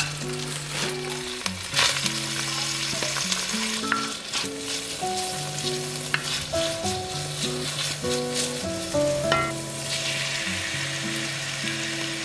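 Garlic and sliced onion sizzling in oil in a cast-iron wok, stirred with a wooden spoon that clicks against the pan now and then. The sizzle turns louder and denser near the end as frozen mixed seafood goes into the pan. Soft background music with a simple melody plays underneath.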